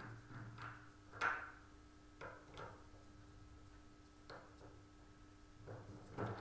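Oboe reed profiling machine being handled: a series of light, sharp metal clicks and knocks as its parts are moved and gripped. The sharpest click comes a little over a second in, and several more crowd together near the end.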